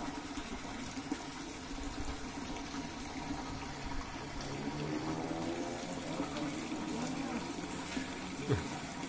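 Water running and pouring steadily, with faint voices in the background and a short sound falling in pitch near the end.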